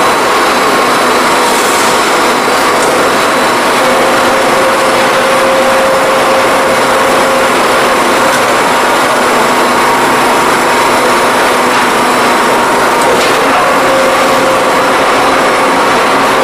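Steady mechanical running noise of a metal-tube spiral-forming machine as it twists flutes into a steel tube, with a faint hum that comes and goes.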